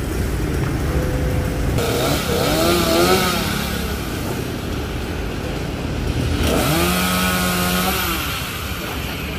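Petrol chainsaw running while cutting a tree branch, its pitch wavering up and down twice as it works through the wood.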